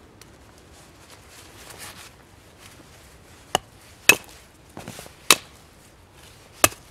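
A Hultafors hatchet striking the top of an upright wooden stake: four sharp, separate blows, the second and third the loudest, with a few lighter knocks between them.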